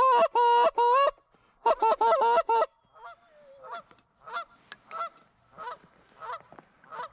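Goose honking: a loud, fast run of honks and clucks, about five a second, that breaks off and starts again briefly. After about three seconds it gives way to fainter, evenly spaced honks, about one and a half a second.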